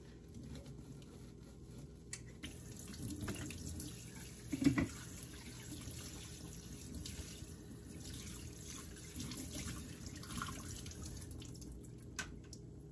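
Kitchen faucet running into a stainless-steel sink while a plastic container is rinsed under the stream. A brief knock about halfway through, and a few light clicks.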